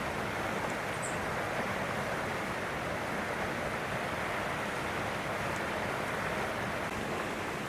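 Steady rushing outdoor background noise, with a faint short high chirp about a second in.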